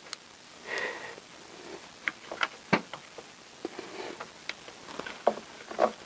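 Scattered small clicks and taps of plastic and metal parts being handled as a chainsaw's trigger linkage is fitted back in, with a short sniff just under a second in.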